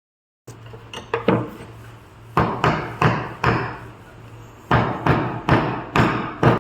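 A hammer striking wooden parts, about a dozen sharp blows in three quick runs of two, four and six, each with a short ringing tail, over a steady low hum. The sound starts abruptly about half a second in.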